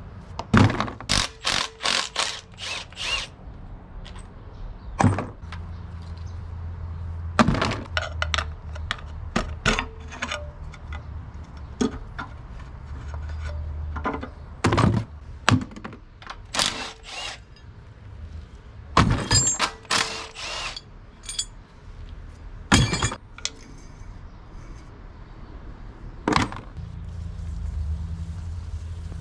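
Hand tools and metal engine parts clanking and knocking during an engine teardown: irregular sharp strikes, some in quick runs, over a steady low hum.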